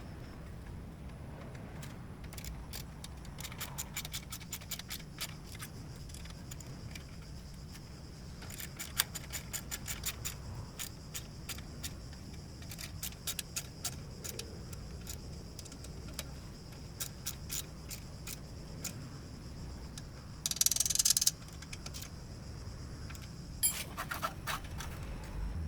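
Ratchet wrench clicking in quick runs as bolts are turned, over a steady low hum. A brief loud hiss comes about twenty seconds in.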